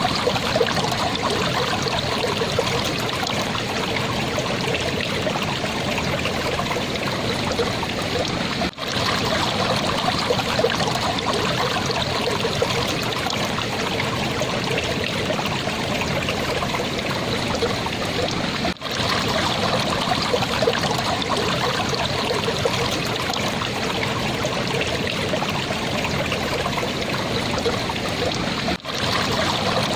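Shallow stream water babbling and trickling steadily, with three brief drop-outs about ten seconds apart.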